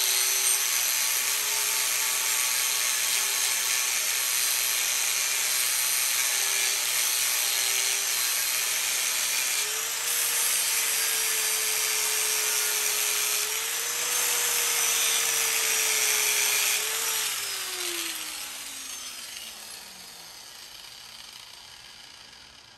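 Angle grinder with an abrasive disc grinding a TIG weld on a metal steering column tube, running steadily with a hissing grind. About three-quarters of the way through it is switched off and winds down, its whine falling in pitch and fading.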